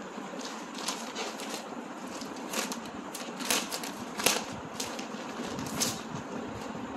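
Clear plastic garment packet crinkling in several short, sharp bursts as the clothes are pulled out of it, the loudest about four seconds in, over a steady low hum.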